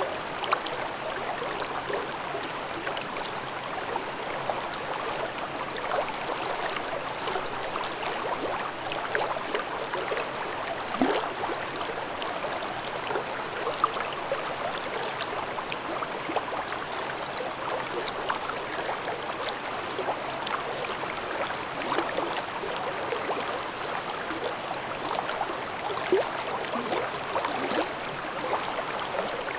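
Shallow mountain stream babbling: a steady rush of flowing water, dotted with many small gurgles and plops.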